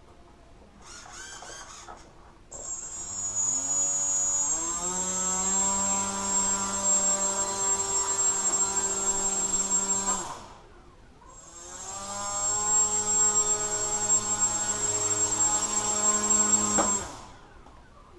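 Small electric motor and propeller of a radio-controlled model, spinning up with a rising hum about two and a half seconds in and running steadily with a high whine. It dies down around ten seconds in, spins up again a second later, and cuts off suddenly about a second before the end.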